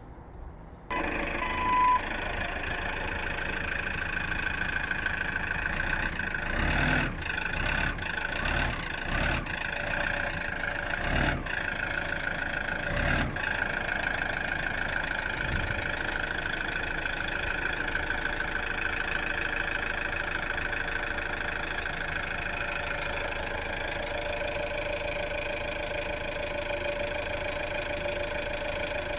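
A motor runs steadily, with a few knocks about a quarter to halfway through.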